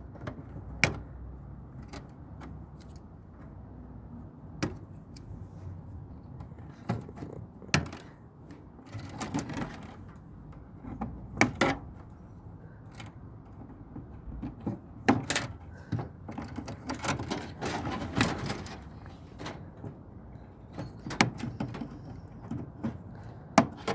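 Irregular clicks, snips and knocks of hand tools and metal parts as a scrap tumble dryer is stripped, with cables being cut off; the clicks come in small clusters with quiet gaps between.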